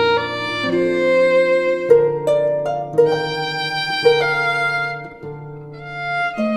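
Instrumental music: a fiddle playing a melody over plucked string accompaniment and held bass notes, dipping softer about five seconds in before swelling again.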